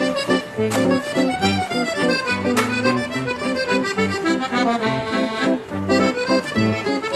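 Background instrumental music: a traditional folk-style tune with held chords over a moving bass line.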